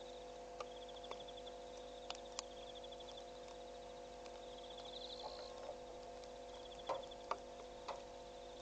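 Night insects trilling: a high, fast-pulsed trill repeating every second or two over a steady low hum. A few faint clicks and knocks, the loudest about seven seconds in.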